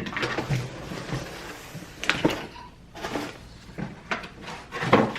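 Handling noise: a few sharp knocks and bumps over light rustling and scraping as things are moved about.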